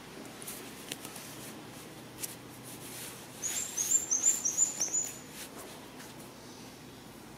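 A bird calling: a quick run of about five short, high-pitched chirps about halfway through, over quiet outdoor background.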